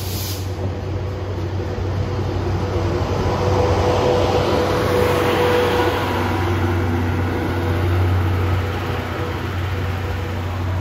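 JNR 12- and 14-series passenger coaches rolling slowly past as the train pulls out: a steady low hum and rumble from the wheels and underfloor equipment, swelling in the middle as the cars go by.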